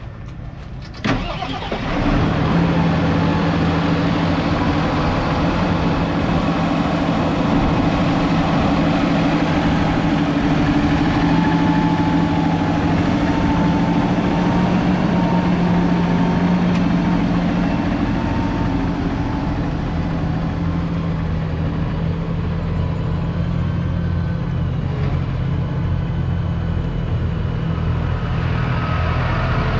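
JCB Fastrac 4220's 6.6-litre six-cylinder diesel engine starting about a second in, then running steadily with a low even hum.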